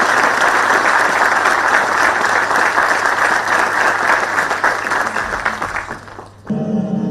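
Audience applauding steadily, dying away about six seconds in; music then starts abruptly near the end.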